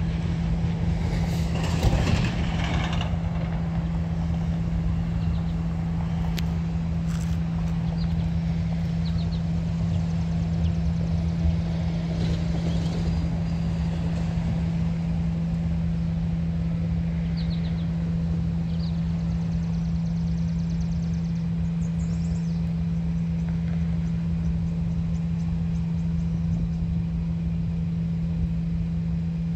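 A steady low mechanical hum with a constant low drone, with a brief louder noisy patch about two seconds in and a few short faint high chirps.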